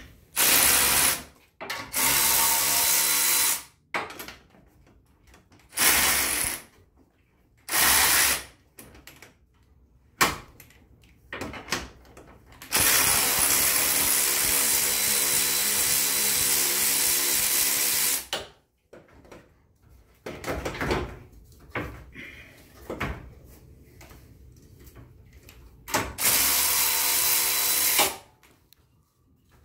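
Power ratchet running in repeated bursts to tighten hose clamps on turbo intercooler piping: several runs of about a second, one long run of about five seconds in the middle and another near the end, with light handling clicks in the gaps.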